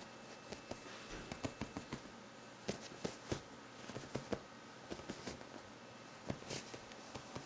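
Scattered soft taps and rustles, a few a second at irregular intervals, as a sphynx kitten jumps and pounces about on bedding, batting at a hand.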